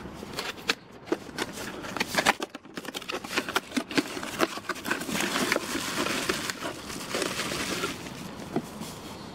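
Cardboard product box being opened and handled by hand: a scatter of light clicks and taps from the box flaps, then denser crinkling and rustling of the packing from about halfway through.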